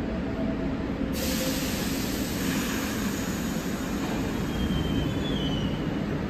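New York City subway train rumbling through the station on a track out of sight, with a hiss that comes in suddenly about a second in and a faint high wheel squeal near the end.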